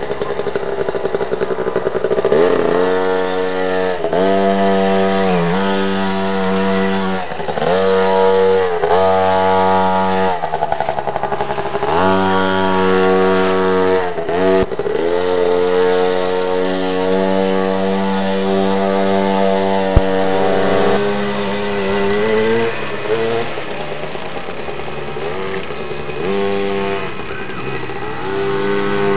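Mini motocross bike engine revving under way: repeated rising pitch as the throttle opens, dropping back between pulls, about every second and a half. It then holds a steadier pitch for several seconds and goes quieter and more uneven near the end.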